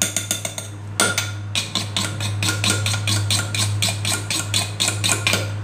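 Pestle and spoon working mackerel chili paste in a clay mortar: quick repeated knocks, several a second, with a steady low hum underneath.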